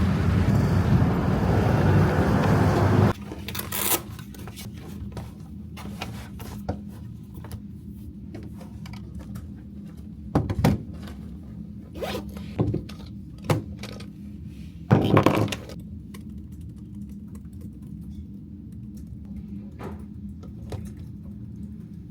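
Loud vehicle running noise for about three seconds, cut off abruptly by a quiet room with a steady low hum, where objects are handled in scattered short scrapes and knocks, with a zipper-like rasp about halfway through.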